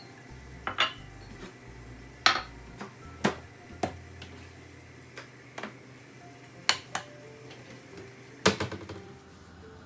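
Kitchen wall cupboard being opened and items on its shelves handled: a string of sharp clicks and knocks of doors, jars and cups, the loudest about two seconds in and near the end. Faint background music underneath.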